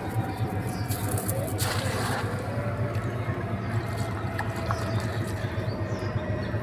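A cast net splashing down onto the river's surface about two seconds in, a short rush of water. Under it runs a steady low engine hum.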